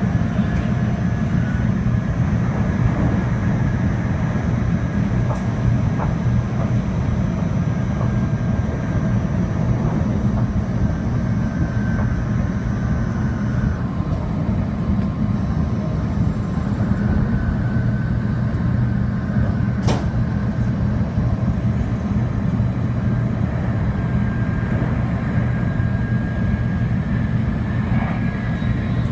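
Shinkansen bullet train running at speed, heard from inside the passenger car: a steady low rumble with faint high tones that come and go, and one sharp click about two-thirds of the way through.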